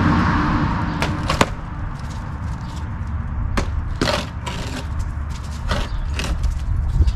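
A handful of sharp, irregular knocks and clicks over a steady low rumble.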